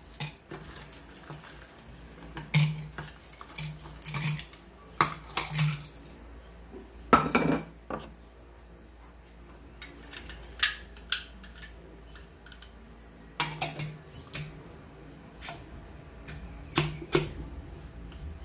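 Irregular knocks and clatters of a bowl against a blender jar as it is emptied in, then the blender's lid being handled and fitted onto the jar. Sharp taps come every second or so, with quiet gaps between.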